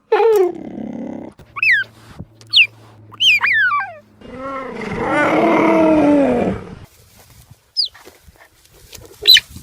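Big cat calling: several short, high calls that fall in pitch, then one longer drawn-out call about four seconds in, and two more short high calls near the end.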